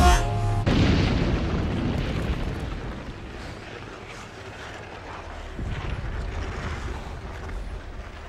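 Artillery shells exploding: a heavy boom at the start and a second blast about a second later, rumbling away over a couple of seconds. A low vehicle engine rumble follows later on.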